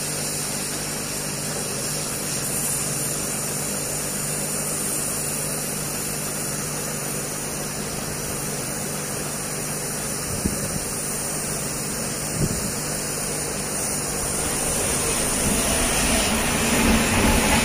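Hot air gun blowing steadily, a continuous rushing hiss with a low hum, as it heats the solder of a phone's charging port to desolder it. Two small clicks come about two-thirds of the way through, and the sound grows louder near the end.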